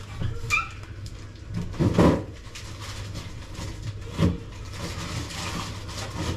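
Dull knocks and bumps of things being handled and moved in kitchen cupboards, loudest about two seconds in and again about four seconds in, over a low steady hum.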